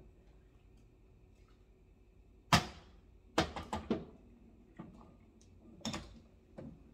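Kitchen utensils and cookware knocking and clattering. There is one loud knock about two and a half seconds in, a quick run of three or four clatters a second later, and a few lighter knocks near the end.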